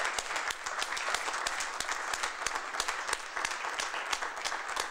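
A small audience applauding: many hands clapping irregularly at a steady level.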